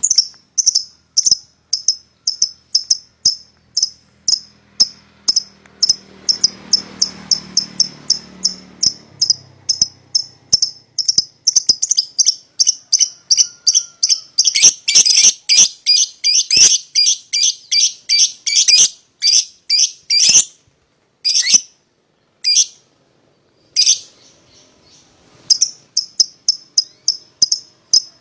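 Young lovebirds giving a rapid series of short, sharp, high-pitched chirps, about three to four a second. They grow louder and denser in the middle, break into a few separate calls with gaps, then resume the steady series near the end.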